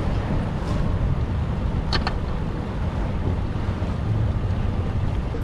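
Small outboard motor on an inflatable dinghy running steadily under way, with wind buffeting the microphone. A brief click about two seconds in.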